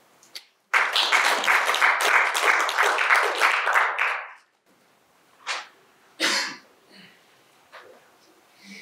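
Audience applauding for about three and a half seconds, starting just under a second in and ending fairly abruptly, followed by two brief isolated sounds.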